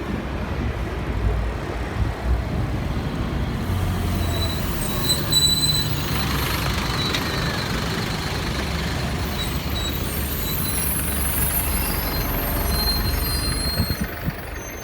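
Busy city street traffic with buses and trucks running and passing close by, a steady low rumble throughout. A thin high squeal, like a brake, comes about four seconds in and again near the end.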